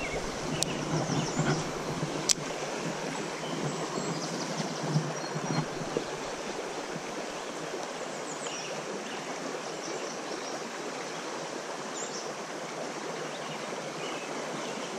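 Small trout stream running steadily over a riffle, with a couple of sharp clicks in the first few seconds.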